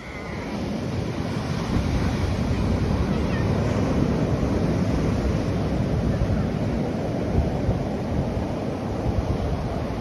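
Ocean surf breaking and washing up a sandy beach in a steady rushing wash, swelling up over the first second or two, with a low rumble of wind on the microphone.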